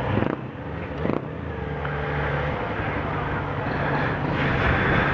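Motorcycle engine running at low revs as the bike rolls slowly, a steady low hum that grows a little louder towards the end.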